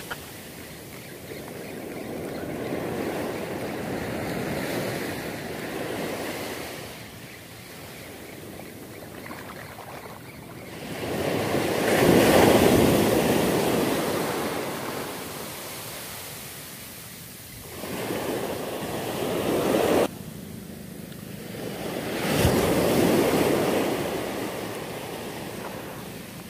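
Surf washing up a beach in repeated surges, each rising and falling over a few seconds, the loudest about halfway through; one surge cuts off suddenly about twenty seconds in.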